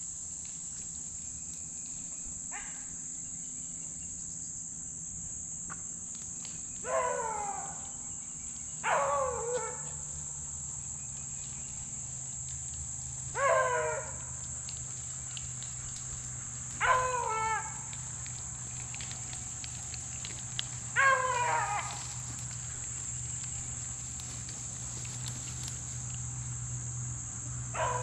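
A beagle baying while hunting a deer: about six loud, drawn-out yelps, spaced every three to four seconds, each falling in pitch. A steady high insect drone runs underneath.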